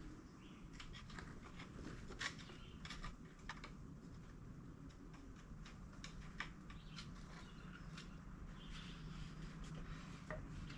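Faint scattered clicks and clinks of small hand tools and fittings being handled and tried, over a low steady hum.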